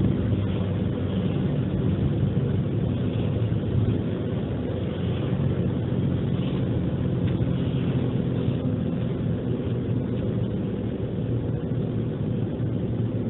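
Car driving at steady speed, heard from inside the cabin: a continuous low engine hum with road and tyre noise.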